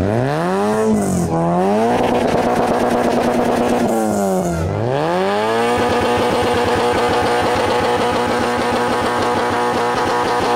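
A rally car's engine being revved hard while the car is stuck on the roadside verge: the pitch swings up and down a few times, dips and climbs again about four seconds in, then holds at steady high revs.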